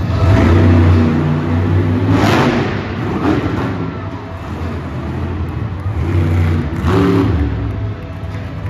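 Bigfoot monster truck's engine revving hard as the truck climbs over and crushes junk cars, with a few loud crunching surges along the way.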